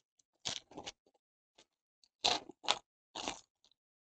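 A foil trading-card pack being opened and handled: a handful of short crinkling, scraping rustles of the wrapper, in two clusters.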